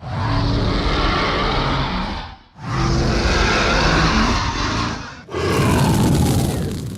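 Three drawn-out, growling monster roars as a creature sound effect, one after another with short breaks; the third is harsher and reaches higher than the first two.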